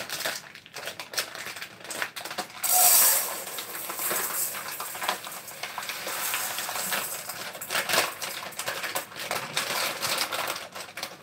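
Dry, uncooked rice grains pouring from a plastic bag into a metal pot: a dense rattling patter of grains hitting metal, loudest about three seconds in, with the plastic bag crinkling in between.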